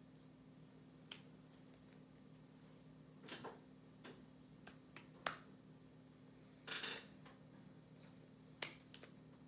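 Faint, scattered taps and slaps of hands striking each other while signing, with a short rustle of hands brushing clothing a little before the seven-second mark. A low steady hum runs underneath.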